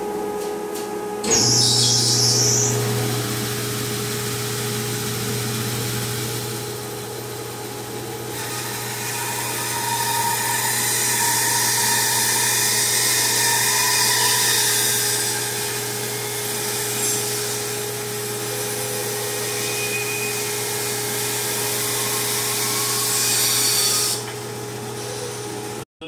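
Rockwell Model 20 bandsaw running, with a steady motor hum; a deeper hum joins about a second in. The blade rips lengthwise through a cherry log with a steady hissing cut that swells through the middle and eases off near the end as the first slab is sawn free.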